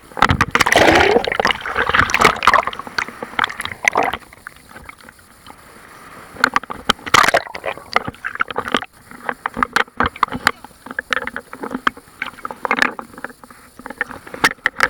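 Big sea waves splashing and sloshing. The splashing is loudest in the first four seconds, with another short burst about seven seconds in and smaller splashes after.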